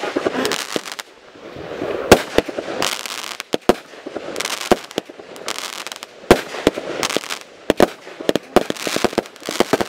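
Aerial fireworks going off: a string of sharp bangs and crackles at irregular intervals, the loudest about two seconds in.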